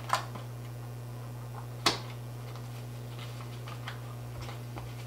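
A cardboard makeup palette box being handled and opened. There are two sharp clicks, one right at the start and one about two seconds in, then a few faint ticks, over a steady low hum.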